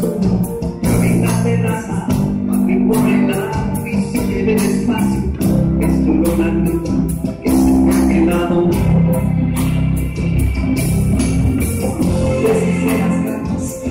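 Live, amplified band music: a male singer over drums with a steady cymbal beat, bass, electric guitar and keyboards.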